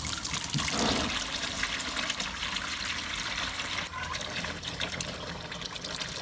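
Water pouring out of a John Deere B's crankcase drain and splashing into a drain pan, a continuous trickling stream that eases slightly after the first second or so. The overfull crankcase is holding water instead of oil.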